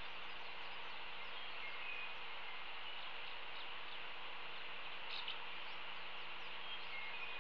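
Steady outdoor field ambience: an even hiss with a faint low hum, and a few faint, short bird notes about two seconds in and again near the end.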